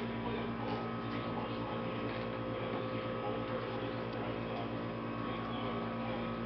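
Steady electrical hum made of several fixed tones, with faint room noise and a few soft ticks.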